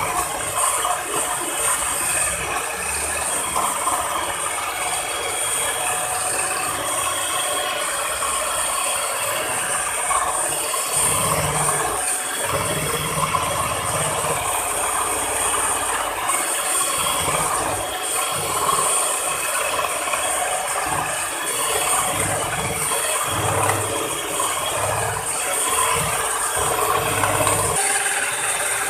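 Miyako electric hand mixer running steadily, its twin beaters whipping a homemade ice cream mixture until it is light and fluffy.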